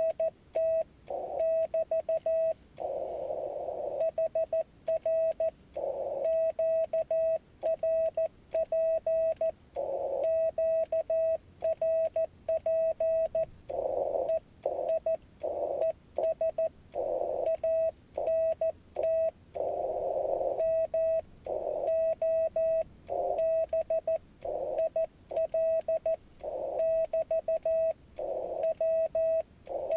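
Morse code (CW) from a Yaesu FT-817D transceiver: a single steady-pitched tone keyed on and off in dots and dashes, with short patches of hiss in the same narrow pitch range between some characters.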